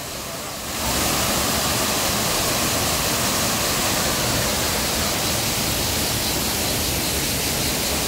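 Waterfall rushing: a steady wash of falling water that gets louder about a second in, then holds.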